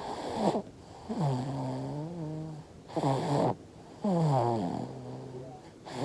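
A five-month-old baby snoring in sleep: about four separate snores, each a buzzing tone that mostly slides down in pitch.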